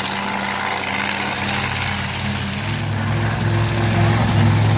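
Dragster's engine idling at the starting line, a steady engine note that grows louder about halfway through.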